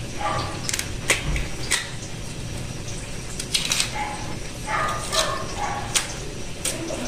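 Kitchen knife peeling the skin off a cassava root, giving a few short sharp scraping clicks. An animal calls in short pitched cries a few times.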